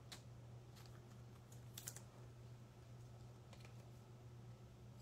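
Near silence: a low steady hum with a few faint, sparse clicks, the loudest a little under two seconds in.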